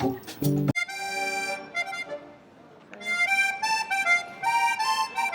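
Instrumental music: a melody of held notes over sustained chords, with a short pause about two seconds in. It starts with a sudden cut from a livelier piece with drum strikes.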